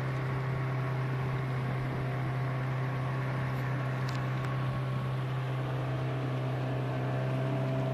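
Boat engine running steadily while under way: a constant low drone with a few steady higher tones above it, its pitch holding even throughout.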